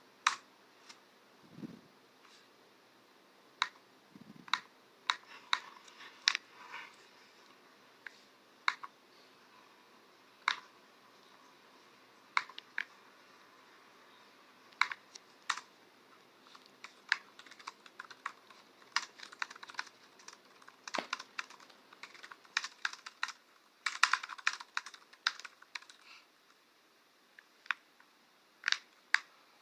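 Typing on a computer keyboard: irregular key clicks, sometimes single keystrokes with pauses of a second or two, sometimes quick runs of several keys.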